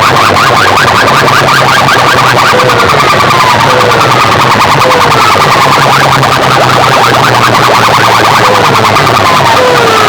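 DJ loudspeaker sound systems played at full volume in a sound-box competition, heavily distorted and blasting siren-like electronic effects. Fast repeating upward chirps overlap slower falling whoops that come every couple of seconds, over a steady low hum.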